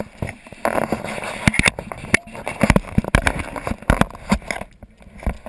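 Choppy lake water slapping and splashing against the hull of a personal watercraft, with irregular knocks and crackles.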